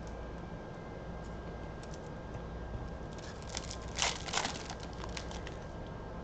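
Foil trading-card pack wrapper being handled and crinkled, with a cluster of sharper crinkling and tearing noises about four seconds in.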